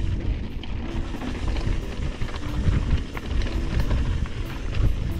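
Trek Fuel EX 8 full-suspension mountain bike riding down a dirt trail: heavy wind rumble on the microphone, with constant small clicks and clatter from the bike and tyres over the ground.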